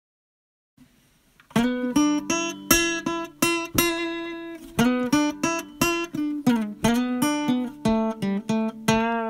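Outro music on acoustic guitar: after about a second and a half of silence, quick plucked and strummed notes begin.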